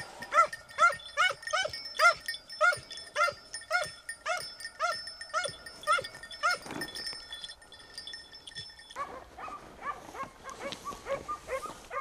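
Hunting dogs barking while driving wild boar: a steady run of short yelping barks, two or three a second, that thins out about halfway through and comes back fainter near the end.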